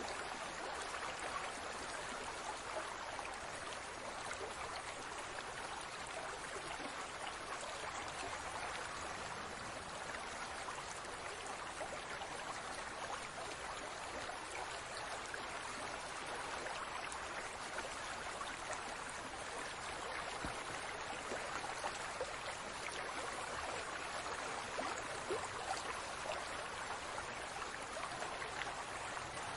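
Aquarium water bubbling and trickling steadily, a dense stream of small bubbles popping at the surface.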